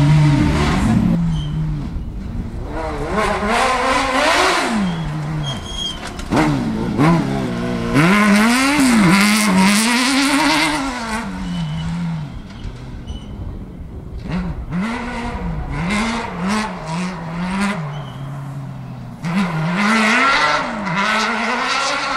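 Off-road rally buggy's engine racing past, revving up and dropping back again and again through gear changes and lifts.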